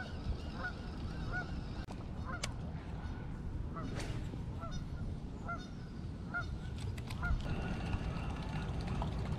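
Geese honking repeatedly, short calls roughly one a second, over a steady low rumble of wind on the microphone.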